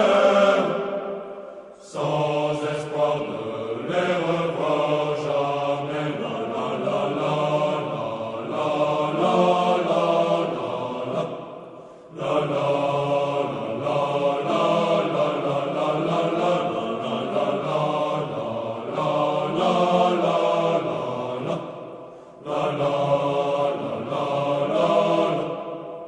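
Background music: a slow sung chant, with voices holding long phrases of about ten seconds each, separated by brief breaks. It begins to fade out near the end.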